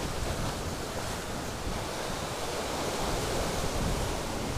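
Sea surf breaking and washing over shoreline rocks, a steady rush of waves, with wind buffeting the microphone.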